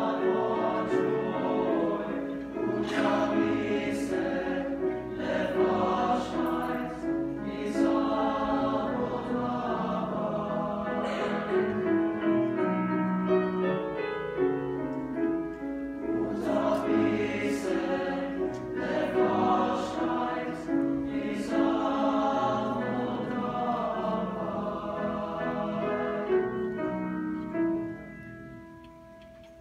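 Boys' and young men's choir singing in parts with piano accompaniment. The song ends near the end on a held final chord that dies away.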